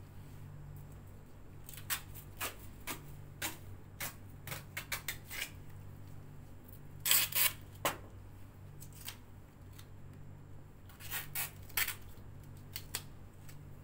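Adhesive plaster tape being pulled and cut into strips to secure a drain dressing: a series of short, crisp snips and crackles in irregular clusters, the longest about seven seconds in, over a steady low hum.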